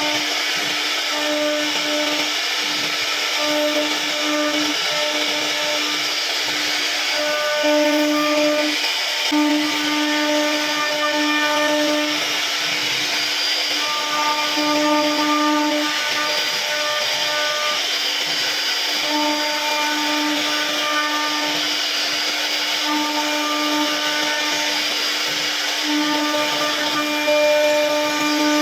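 CNC router spindle whining steadily with a hiss as its bit carves wood, the whine growing louder and softer every second or two as the cut changes.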